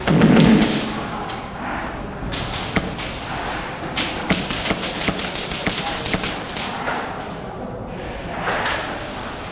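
A thud right at the start, then a run of irregular sharp clicks and knocks.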